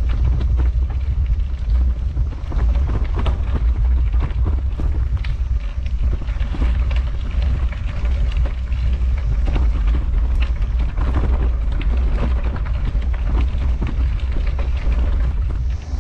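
Bicycle tyres rolling over a gravel trail, with constant crunching and rattling, under heavy wind rumble on a bike-mounted action camera's microphone.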